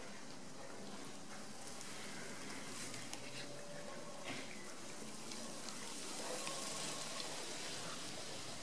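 Steady faint hiss with scattered soft crackles: a Great Dane puppy chewing and pulling at lawn grass.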